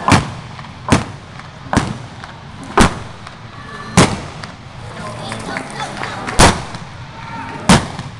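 Seven revolver shots firing blank loads at cowboy mounted shooting balloon targets, roughly a second apart with a longer pause midway. Each shot rings off a large indoor arena.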